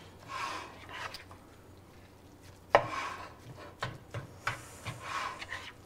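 A spatula scraping and turning chunks of seasoned ground turkey in a skillet in short strokes, with one sharp knock against the pan a little under three seconds in and a few lighter taps after.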